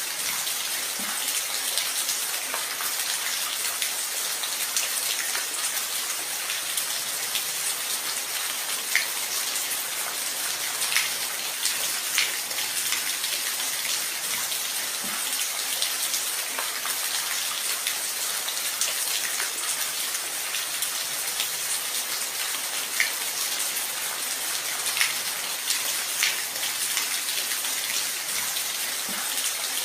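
Steady rain falling, an even hiss with scattered louder drops striking a surface.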